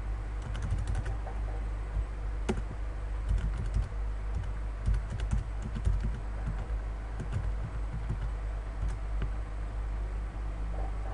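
Computer keyboard typing in short runs of keystrokes, with one louder key strike about two and a half seconds in and a few single clicks later. A steady low hum runs underneath.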